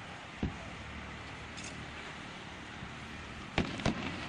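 Aerial fireworks shells bursting, picked up by a smartphone microphone: one sharp bang about half a second in and two more in quick succession near the end, over a steady background rumble.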